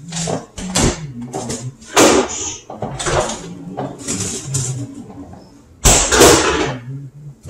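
Refrigerator door opened and shut, with knocks and rustling of packaging; the loudest knock comes about six seconds in.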